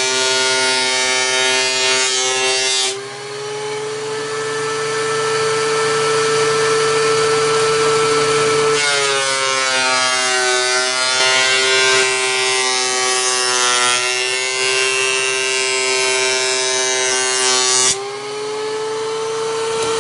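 Benchtop thickness planer running and planing southern yellow pine boards. While a board is cutting, the motor note drops and a loud hiss of shaving rides over it. As the board clears, about three seconds in and again near the end, the motor rises to a higher free-running whine. A second board goes in about nine seconds in.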